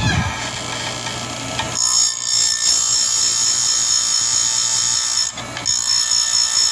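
Electric chainsaw-chain grinder: the motor runs, and about two seconds in the spinning abrasive wheel meets a steel chain tooth with a shrill, steady grinding whine. The grinding breaks off briefly a little after five seconds in, then starts again.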